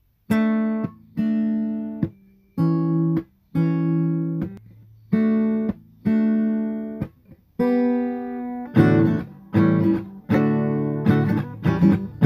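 Intro music of strummed acoustic guitar chords, each chord cut off short, about one a second at first and in quicker strums in the last few seconds.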